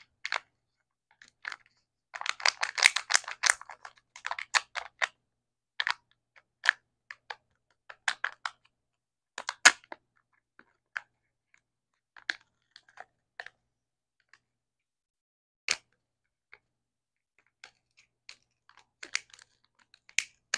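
Sealed lid of a Kinder Joy egg's toy half crinkling and crackling as fingers pick at it and peel it back. Scattered sharp crackles, with a dense run about two seconds in.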